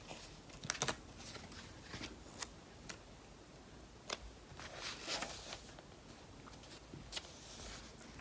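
Faint rustling of a paper sticker sheet being flexed and a sticker being peeled off it, with a few light scattered clicks.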